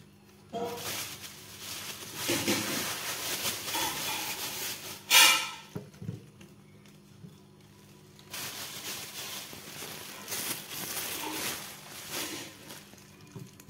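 Handling noise as a handful of wild mushrooms is piled onto a digital kitchen scale: rustling and brushing, with one sharper, louder rustle about five seconds in. After a short lull, a thin plastic bag rustles as it is handled beside the scale.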